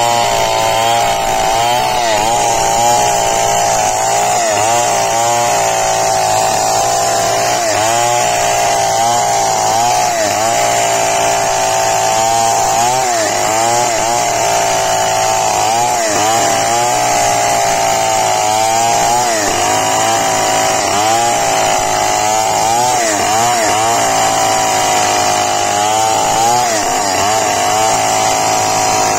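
Old two-stroke chainsaw with a long bar running under load while ripping lengthwise through a teak plank. The engine note wavers up and down as the chain bites into the wood.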